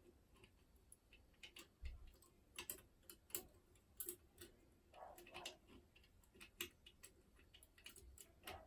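Faint, irregular metallic clicks and light scraping of a lever-lock pick wire and tension bar working the levers inside a Yale 5-lever curtain mortice lock, a couple of clicks a second, as the lock is picked.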